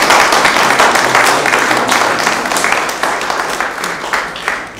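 Audience applauding, the clapping loudest at first and slowly fading.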